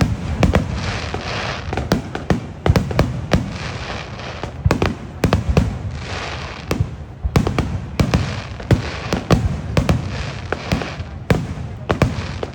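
Aerial fireworks bursting in quick succession: many sharp bangs, several a second, with crackling hiss between them.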